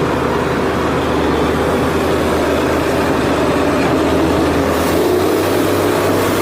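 Truck engine running steadily while driving, a low continuous drone. A hiss comes in near the end.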